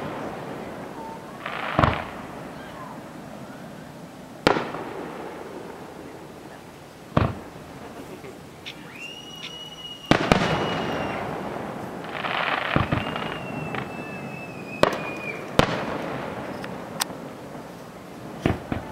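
Aerial fireworks shells bursting one after another, about eight sharp booms a few seconds apart, each trailing off in an echo. Two drawn-out high whistles sound in the middle stretch.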